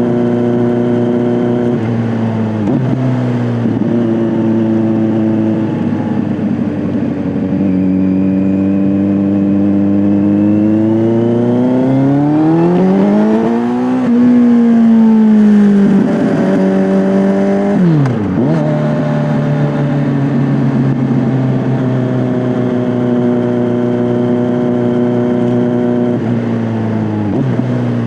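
Kawasaki Z900 inline-four running through an SC-Project S1 aftermarket exhaust while being ridden. The engine note holds steady, then climbs steadily over about four seconds midway and falls back. Several quick drops in pitch mark gear changes.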